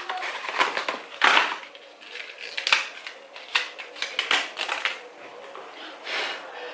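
Transparent plastic phone case being pressed and snapped onto a smartphone: a run of irregular sharp clicks and short crackling rustles of plastic.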